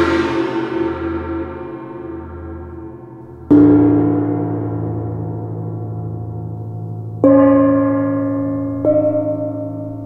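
Hanging gongs struck one at a time with a mallet, each stroke ringing on and slowly fading. One is already ringing at the start; fresh strikes come about three and a half seconds in, again at about seven seconds, and once more under two seconds later, each at a different pitch.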